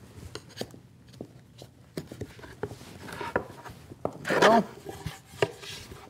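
Scattered wooden knocks and taps as a scrap-plywood backer held on with double-sided tape is pried and pulled off a plywood table top, with one louder pulling sound about four seconds in.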